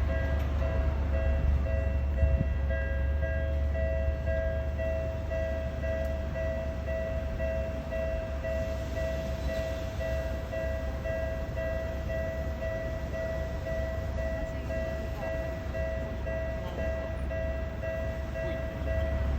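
Japanese railway level crossing warning bell ringing steadily, with a train rumbling over the crossing underneath it.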